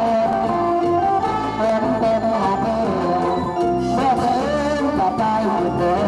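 Live band music amplified through horn loudspeakers: an electronic keyboard carries a bending, wavering melody over a drum-kit beat.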